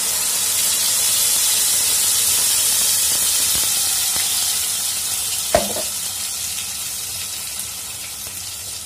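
Wet ground masala paste hitting hot oil in a stainless steel kadhai and sizzling loudly, the hiss strongest in the first few seconds and then slowly easing. One sharp tap about five and a half seconds in.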